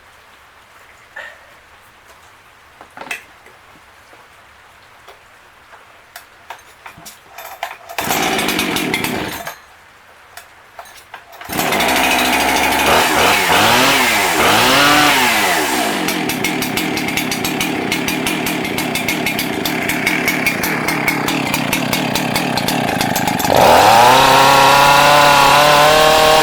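Jonsered 2165 two-stroke chainsaw being started. After a few quiet clicks it fires for a second or so about 8 seconds in and stops, then starts for good about 11 seconds in, is blipped up and down and runs steadily. It is revved louder and higher near the end.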